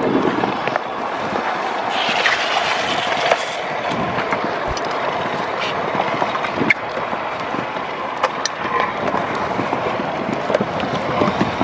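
Several stunt scooters rolling along a concrete sidewalk: a steady rumble of small hard wheels, with scattered clicks and knocks.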